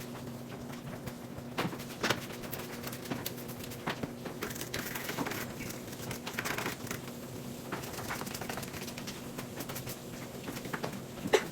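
Handling and cleaning sounds at a washing machine: scattered clicks and knocks with stretches of rubbing or wiping, over a steady low hum, and one sharp click near the end.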